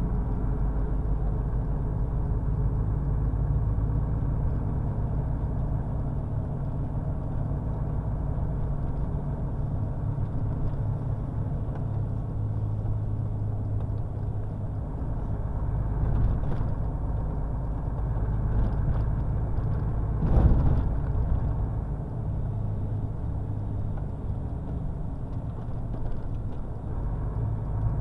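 Truck on the move: a steady low engine drone with road noise, and one short thump about three-quarters of the way through.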